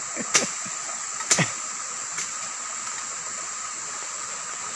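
Forest insects droning steadily on a high, shrill tone. Two sharp knocks come in the first second and a half.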